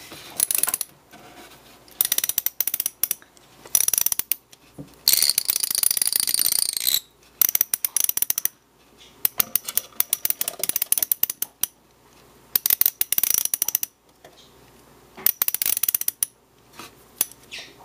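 Torque wrench ratchet being worked back and forth, clicking in fast runs of about a second each, with short pauses between. The longest, fastest run comes about five seconds in.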